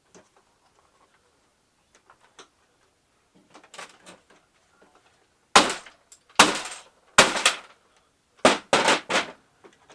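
Plastic housing of a Shark vacuum cleaner being broken apart to get at its motor: light handling noises, then about six loud, sharp cracks in the second half.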